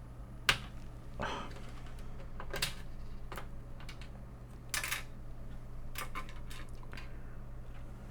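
Irregular small clicks and short scrapes of a screwdriver working the screws out of a Commodore 128's metal RF shield, with a sharp click about half a second in.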